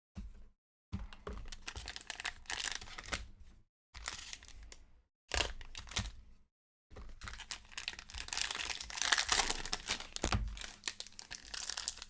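Trading-card pack wrappers being torn open and crinkled by hand, in short stretches with brief silent gaps, busier and louder in the second half.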